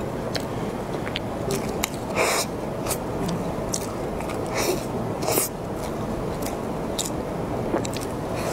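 Close-miked biting and chewing of a large cream puff with a crisp, crumbly top, with many small crackling crunches. The loudest crunches come at bites about two, four and a half and five and a half seconds in.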